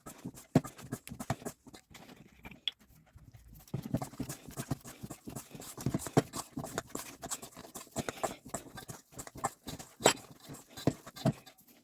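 Irregular knocks, taps and clatter of kitchen work, hands and utensils handling food, with a few sharper knocks scattered through.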